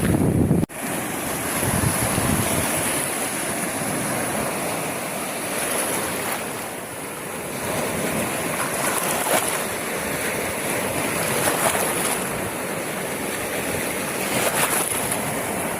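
Sea waves washing onto the shore as a steady, swelling rush. Heavy wind rumble on the microphone cuts off suddenly just under a second in.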